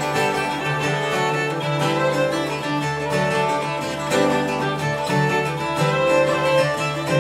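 Irish traditional jigs played live on uilleann pipes, fiddle, bouzouki and guitar, with the pipes and fiddle carrying the melody over the strummed accompaniment of bouzouki and guitar.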